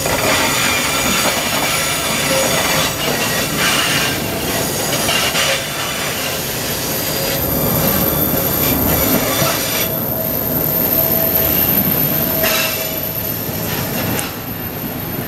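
Freight-train tank wagons rolling past, their wheels running on the rails with a faint screech that comes and goes. The sound falls off as the last wagon goes by near the end.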